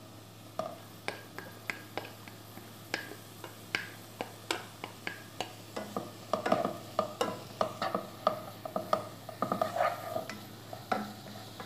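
A wooden spatula stirring boiled mustard greens into fried onion and spice masala in a pan, with a string of scrapes and knocks against the pan that come faster from about six seconds in. A faint sizzle of the frying mixture runs underneath.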